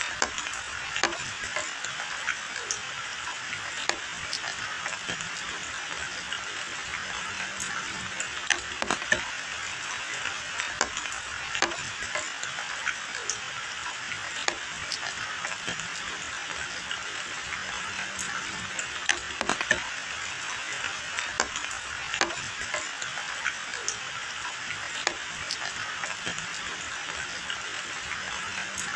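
Steady rain falling on hedge foliage and a wet road: an even hiss with many scattered, irregular sharp drops and splats.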